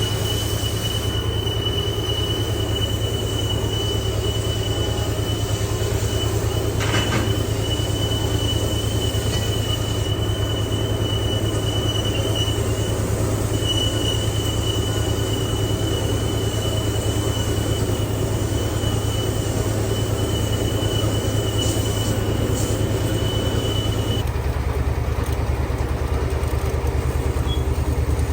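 Heavy boring machine running on a steel pipe, a low steady hum under a thin, high-pitched metal-on-metal squeal. The squeal cuts off suddenly about 24 seconds in, and the hum changes at the same moment.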